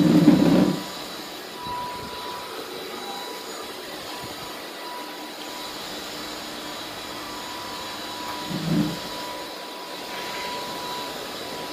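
Cordless stick vacuum cleaner running, a steady motor whine over the hiss of suction. It is louder and lower for about the first second, with a brief low swell about nine seconds in.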